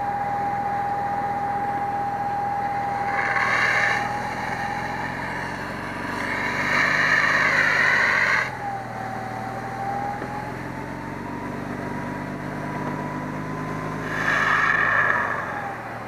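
Fire engine's engine running under load to drive the fire pump, with a steady whine that dips and then rises again in pitch. There are three louder rushing surges, about three, six to eight, and fourteen seconds in.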